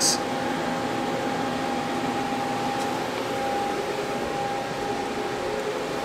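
Steady fan-like machinery hum and hiss, with a faint steady whine that drops out briefly about three seconds in.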